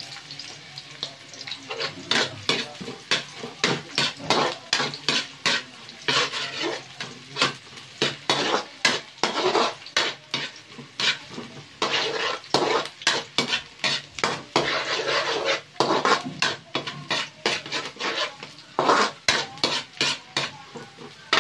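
A metal spatula repeatedly scraping and clinking against a metal wok as chopped ginger and garlic are stir-fried in hot oil, over a steady sizzle of frying, several strokes a second.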